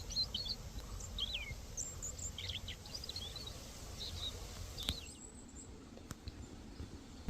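A songbird calling in short, high, twisting chirps, scattered over the first five seconds, above a steady low background rumble.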